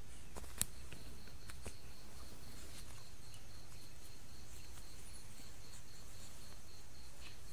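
Quiet room background: a low steady hum with a faint high-pitched pulsing several times a second, like a cricket chirping, and a few soft clicks, one sharper about half a second in.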